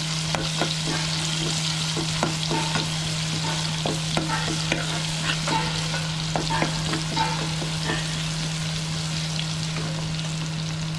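Chopped onions sizzling steadily as they fry in oil in a pan, sautéing toward golden brown, while a spoon stirs them with frequent small clicks and scrapes against the pan. A steady low hum runs underneath.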